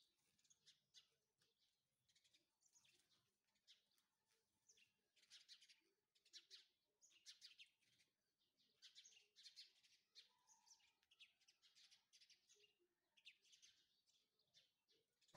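Near silence, with faint birds chirping in the background: many short, high chirps throughout.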